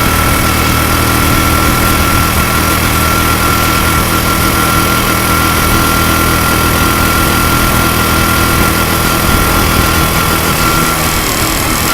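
Single-cylinder four-stroke engine of a Honda Super Cub 90, bored up to 105 cc, running steadily, with a steady high whine that drops away near the end. A manual cam chain tensioner is fitted in place of the automatic one, which the owner says has cured the cam-chain ticking.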